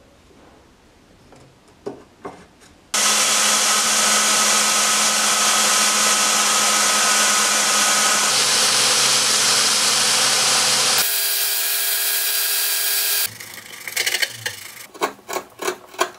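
A few light knocks as a wooden sharpening jig is handled, then a portable belt sander, mounted upside down as a bench station, runs steadily while a chisel's steel edge is ground on its belt. Near the end, rhythmic scraping strokes, about two to three a second, as a freshly sharpened gouge cuts into wood.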